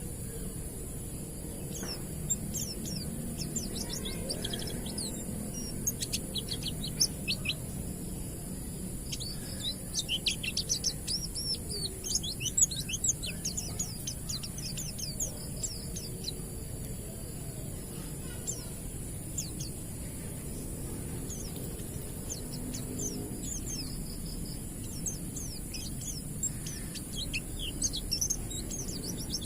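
Oriental white-eyes (pleci) singing in fast, high twittering runs of chirps, busiest in the middle and again near the end, over a steady high-pitched hiss.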